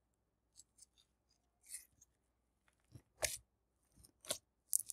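Glitter slime being folded and squeezed by hand, giving a series of short crackles and pops: a few faint ones at first, then louder ones from about three seconds in.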